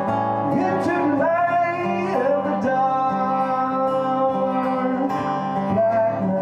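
A man singing live into a microphone while playing acoustic guitar, sliding between pitches early on and holding a long note through the middle.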